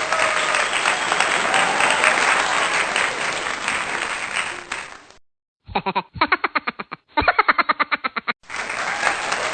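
A steady hiss like applause, with faint voices under it. About five seconds in it cuts out, and a short run of rapid, evenly repeated pitched pulses plays for under three seconds before the hiss returns.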